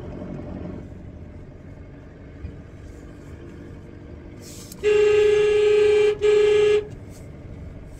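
Car horn sounding twice, a long honk of a bit over a second and then a shorter one, over the steady hum of the car's engine and tyres heard from inside the cabin.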